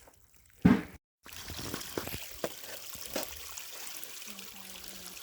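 A single loud thump about half a second in, then, after a brief cut, water from a leaking water line running and splashing steadily, with a few sharp knocks over it.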